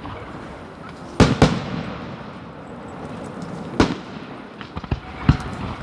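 Aerial fireworks shells bursting in a display. There are two sharp bangs close together a little over a second in, another near four seconds, and one more after five seconds, with smaller crackles in between.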